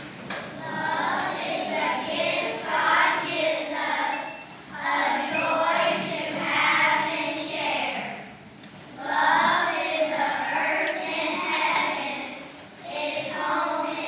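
A class of elementary-school children singing together, in phrases of three to four seconds with short breaks between them.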